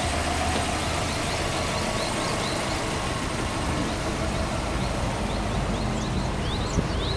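Subaru Impreza WRX STi Version V's turbocharged flat-four boxer engine idling steadily. A single sharp click comes near the end.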